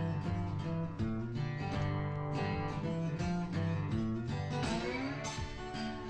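Background music: a guitar piece with plucked and strummed strings playing steadily.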